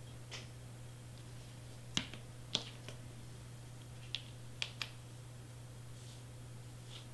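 Five sharp, light clicks and taps between about two and five seconds in, from small craft supplies being handled and set down on a cutting mat, over a low steady electrical hum.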